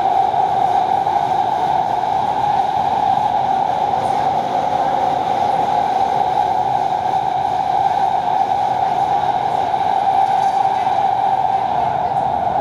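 Doha Metro train running at steady speed, heard from inside the carriage: an even, loud running noise with a strong steady mid-pitched drone.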